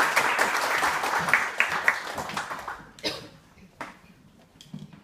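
Audience applauding, fading away over the first few seconds, then two sharp knocks.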